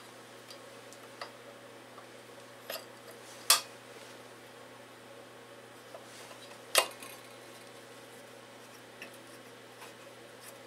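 Metal clinking of tools and loose parts against the stripped cast block of a Briggs & Stratton 5 hp engine during hand teardown work. Two sharp, loud clinks come about three and a half and almost seven seconds in, with softer ticks scattered between.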